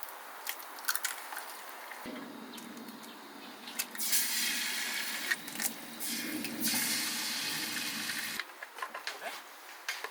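Water running or being poured in a steady stream, with scattered light clicks and knocks, across a few short edited clips.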